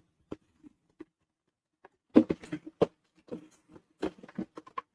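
Toy packaging being handled and unpacked: irregular clicks, taps and crinkles, busiest in two short clusters about two and four seconds in.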